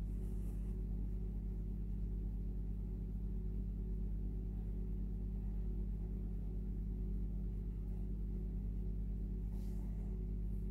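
Background music: a steady, low ambient drone of several held tones.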